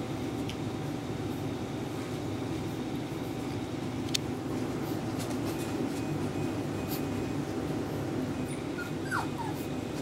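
A steady low room hum with scattered small clicks from puppies scuffling. Near the end a puppy gives a short, falling whimper.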